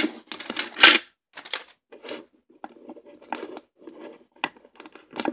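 Fingers handling a plastic action figure close to the microphone while bending its limb joints: irregular rubbing and scraping with a few small clicks, loudest in the first second.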